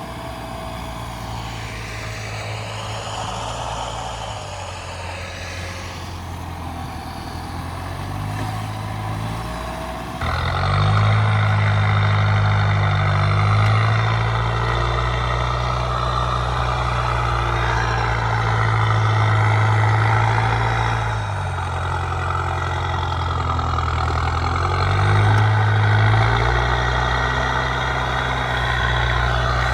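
Mitsubishi L200 pickup engine working hard in deep snow, its revs rising and falling in steps. About a third of the way in it gets suddenly louder, with a rushing noise over the engine.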